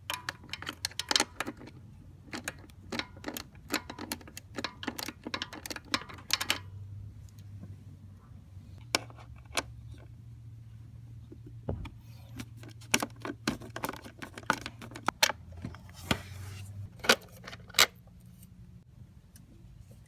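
Metallic clicks and clinks of hand tools, coming in quick runs for the first six seconds or so, then scattered, over a low steady hum.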